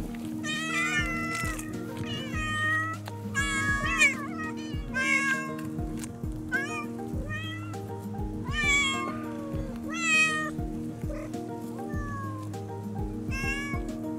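Stray cats meowing over and over, about a dozen short calls that rise and fall in pitch, some overlapping. Background music plays steadily underneath.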